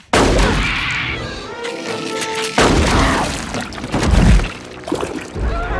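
Horror film sound mix: sudden loud crashes and booms with breaking, shattering debris over dramatic music. One heavy hit comes right at the start and another about two and a half seconds in.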